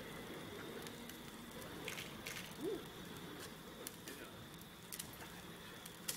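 Faint crackling hiss of the burning wicks on a spinning fire staff, with a few scattered sharp clicks.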